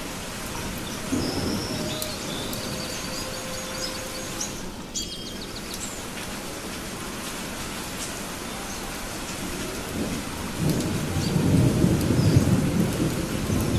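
Thunderstorm: steady rain with thunder, a short rumble about a second in and then a low rumble building louder near the end.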